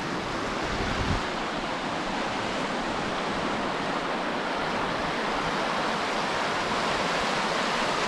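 Shallow, fast river rushing steadily over rocky rapids.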